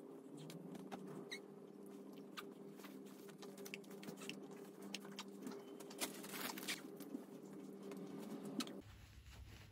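Soft rustling and scattered small clicks of cloth and a diaper being handled while a baby is dressed, over a steady low hum that cuts off near the end.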